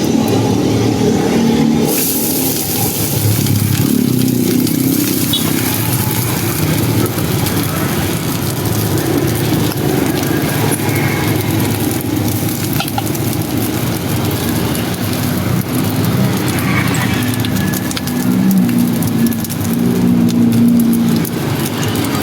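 Food sizzling in hot oil at a street-food stall's stove, the sizzle coming in suddenly about two seconds in and then holding steady, over a steady low rumble.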